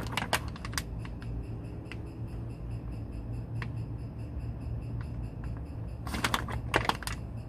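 Synthetic gear lube being filled from a squeeze pack into a Volvo Penta stern drive: scattered clicks and crackles over a steady low hum. They come in two clusters, one at the start and one about six seconds in, with a few single clicks between. The fill is slow because the gear case wants to gurgle back over.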